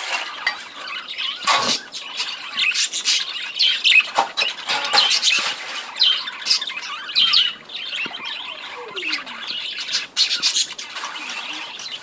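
A flock of budgerigars chattering: a continuous overlapping mix of short high chirps, squawks and warbles.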